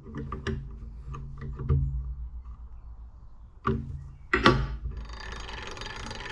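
Metal clicks and knocks from the two-ball crank handle and gears of an 1890s Boynton & Plummer shaper as the handle is worked on its shaft. A loud knock comes about four and a half seconds in, then a steady whirring rush as the handle spins and turns the gear train.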